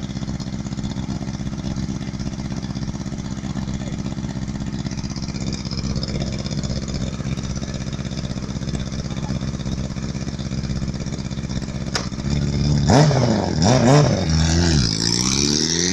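Yamaha R6's inline-four engine idling steadily, then revved twice sharply about twelve seconds in and brought up in a longer climbing rev near the end.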